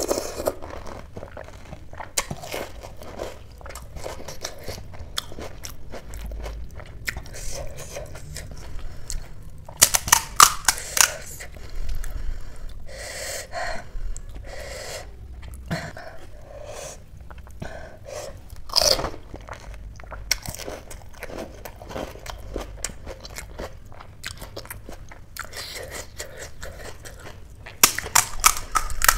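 Close-miked crunching and chewing of pani puri. The crisp fried puri shells are cracked open with the fingers and bitten, making quick runs of crackles about ten seconds in and again near the end, with wet chewing in between.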